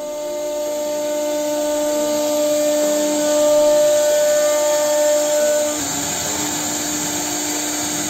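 CNC router spindle running at a steady high-pitched whine while its bit cuts into a wooden board, with a steady hiss from the cutting. The whine changes slightly about six seconds in.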